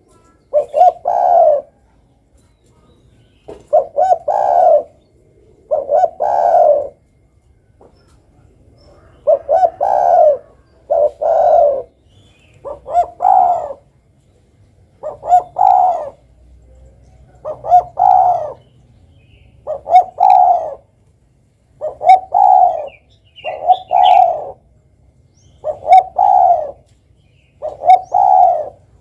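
Spotted dove (derkuku) cooing: a low, repeated coo phrase about every two seconds, each phrase a short run of notes.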